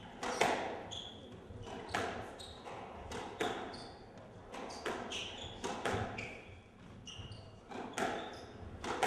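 Squash rally: the ball smacks off racquets and the court walls every half-second to second, with short high squeaks from the players' shoes on the wooden court floor.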